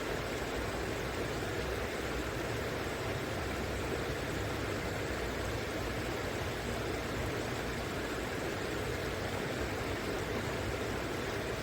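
River water flowing in a steady, unbroken rush, with a low rumble underneath.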